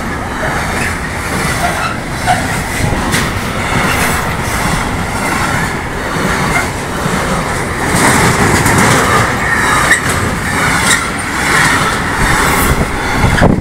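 Freight train of container and tank-container flat wagons rolling past at close range: a steady rumble with repeated clacking of the wheels over the rail joints. The clatter cuts off suddenly at the very end as the last wagon goes by.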